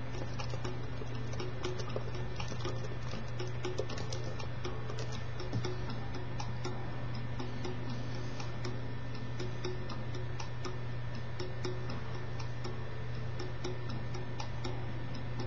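Quiet musical lead-in: a regular ticking beat with soft, faint notes over a steady low hum.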